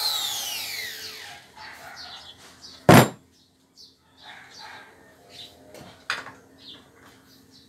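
Makita M3700 palm trimmer's motor spinning down after being switched off, its whine falling in pitch and fading over about a second and a half. About three seconds in there is one loud thud as the trimmer is set down on the wooden table, with a smaller click later and faint bird chirps.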